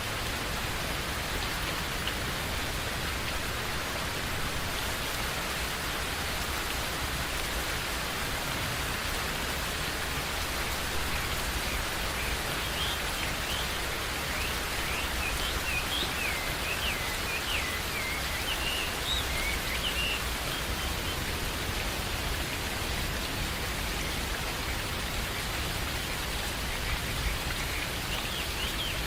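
Steady rain falling, a constant hiss and patter. Birds chirp over it in short calls from about halfway through and again near the end.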